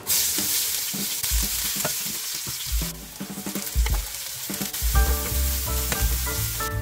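Chopped garlic dropped into hot oil in a frying pan, bursting into a sizzle, then diced carrot, green onion and chili tipped in and stir-fried with a spatula, sizzling with stirring noises. Background music with a drum beat underneath, clearer in the second half.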